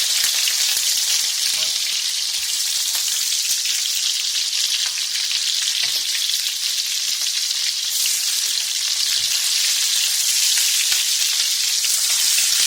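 Prawns sizzling and crackling steadily in hot olive oil in a shallow pan, with faint occasional clicks as they are turned.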